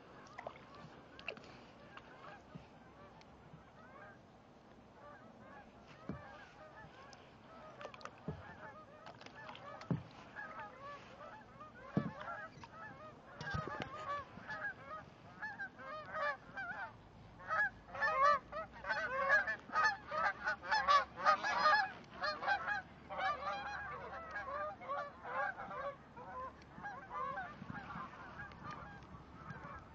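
A flock of geese honking, many overlapping calls that grow louder and denser past the middle, peak, then thin out. A few soft knocks come in the first half.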